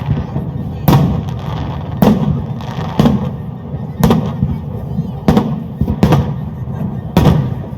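Fireworks exploding in the air: about seven sharp bangs, roughly one a second, each trailing off into a low rumbling echo.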